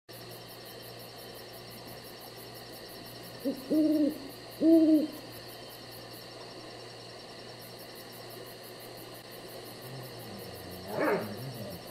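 An owl hooting twice, a few seconds in, each hoot a low arching note, over a faint steady background hiss; a shorter, fainter call follows near the end.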